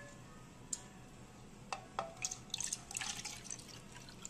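Plastic oil separator cup knocking lightly against a plastic bowl a few times, then rib braising liquid pouring and dripping into the cup, with a quick run of small splashes and drips about two seconds in.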